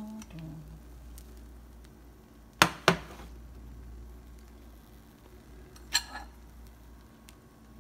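Kitchenware knocking and clinking during cooking: two sharp knocks about a quarter second apart roughly two and a half seconds in, then a single ringing clink about six seconds in.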